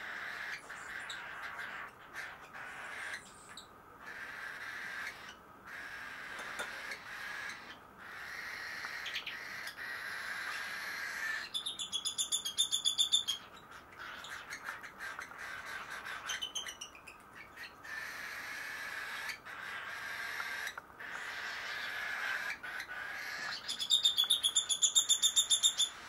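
Baby cockatiels begging for food during hand-feeding: steady raspy calling throughout, with two loud runs of rapid, rhythmic begging calls at about seven a second, one around halfway and one near the end.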